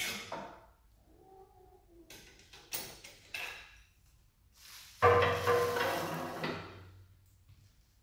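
Hydraulic shop press being worked: a few light clicks from the pump lever, then about five seconds in a single sharp metallic clank that rings on and fades over about two seconds.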